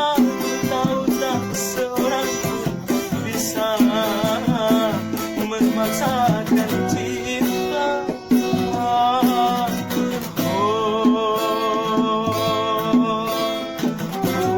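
Acoustic band music: plucked guitar and a rattling percussion keep a steady beat under a wavering, vibrato-laden melody line, with no sung words.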